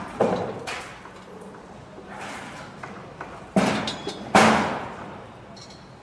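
Construction-site bangs and thuds: a sharp knock at the start, another soon after, a second hard bang about three and a half seconds in and the loudest about four and a half seconds in, each fading away with a ringing tail over a steady low rumble.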